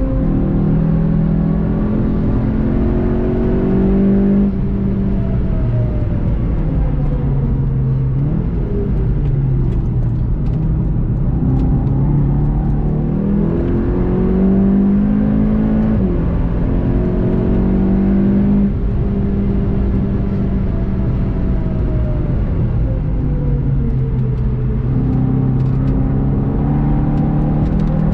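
VW Golf 7.5 GTI TCR's turbocharged 2.0-litre four-cylinder engine, heard from inside the cabin, pulling hard on a fast track lap. The engine note climbs, drops sharply at each upshift (about four, sixteen and nineteen seconds in), and sinks slowly twice as the car slows for corners.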